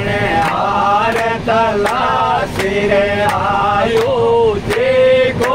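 A man singing a sakhi, a folk devotional verse, unaccompanied, in long held notes that waver and bend. A train's running rumble sits underneath, with faint regular ticks about twice a second.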